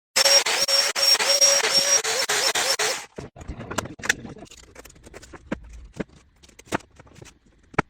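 A power tool runs loudly with a wavering whine for about three seconds, then cuts off suddenly. Scattered lighter knocks and clicks follow.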